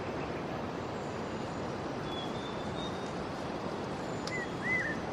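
Jungle ambience: a steady, even hiss with a faint thin high note about two seconds in, and two short bird chirps near the end.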